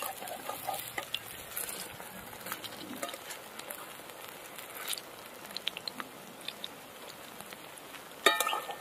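Batter-coated moringa flower fritters sizzling and crackling as they deep-fry in hot oil in a metal kadai, with light clicks of a spatula turning them over. A brief pitched sound comes near the end.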